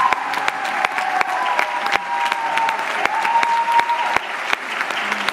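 Theatre audience applauding steadily, dense clapping from many hands, with a long, high, held cheer over it that cuts off about four seconds in.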